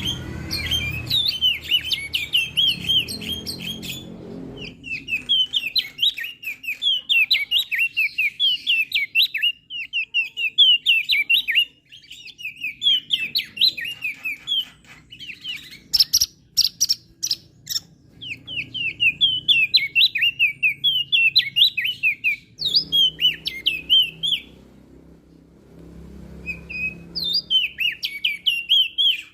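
Opior jambul (crested white-eye) singing: bouts of rapid, high chirping notes a few seconds long, broken by short pauses. A few sharp clicks come about two thirds of the way through.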